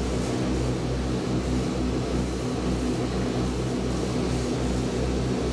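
The four Pratt & Whitney R-2800 Double Wasp radial engines of a Douglas DC-6A droning steadily at climb power, heard from the flight deck, with a regular throb a little more than once a second.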